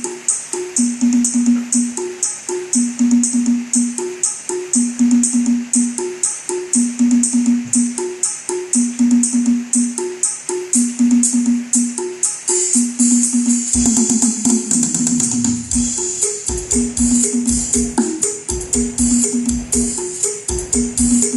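Electronic dance music with a fast, tambourine-like high rhythm and a repeating bass note, played through a home speaker system under test. About two-thirds of the way through, a deep bass note slides downward and heavy pulsing bass comes in.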